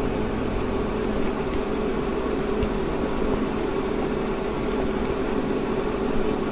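Steady machine hum and hiss of room background noise, with a faint steady tone under it.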